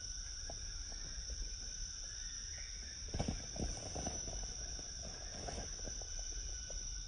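Night insect chorus, a steady high-pitched buzzing trill like crickets, with a low rumble underneath. A few soft clicks and rustles come about halfway through and again briefly later.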